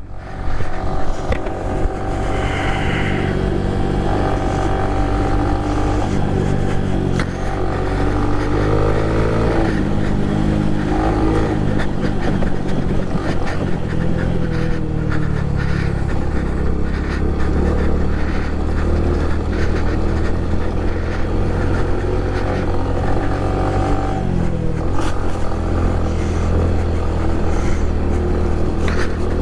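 Honda Pop 110i's small single-cylinder engine running under way on a dirt track, its pitch rising and falling several times with the throttle.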